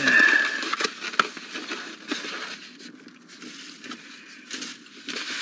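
Rustling and crinkling of a paper takeout bag and cardboard box being handled and opened, with small clicks and scrapes. It is busiest for the first two seconds and then fades to light handling.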